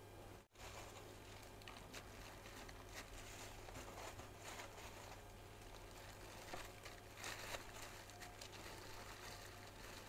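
Faint rustling and soft taps of a plastic-gloved hand setting strawberry halves onto a cheesecake in a foil tray, over a low steady hum.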